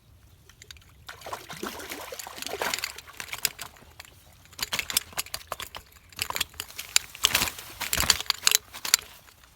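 Pond water splashing and sloshing in irregular bursts, in two main spells with a short lull between them.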